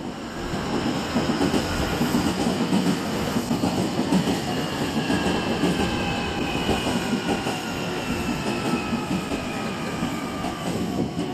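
Nankai 9000 series electric train pulling into the platform, wheels rumbling on the rails. Several whining motor tones glide steadily down in pitch as it brakes.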